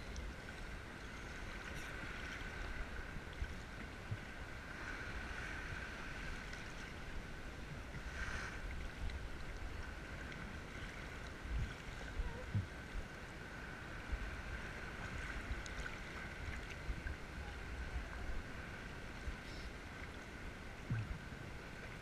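Sea water sloshing and lapping at the surface right around the microphone, with a faint steady high hum and a few low knocks about halfway through and again near the end.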